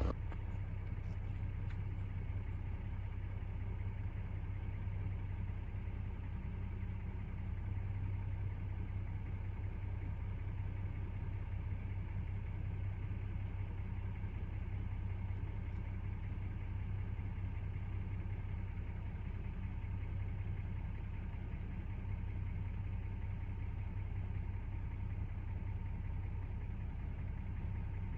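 Vehicle engine idling, a steady low hum that does not change.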